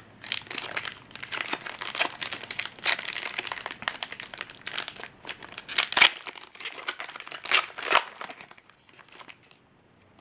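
Plastic wrapper of a sealed hockey card pack being crinkled and torn open, a dense run of crackling with a few sharp louder crackles, dying away near the end.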